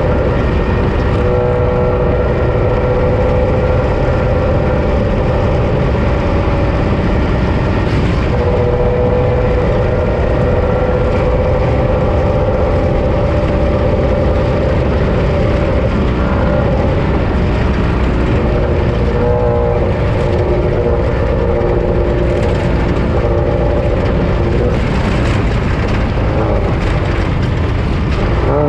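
Off-road race vehicle's engine running hard under load, holding a near-steady pitch that shifts a few times with the revs. Under it runs a constant heavy rumble and rush of driving noise.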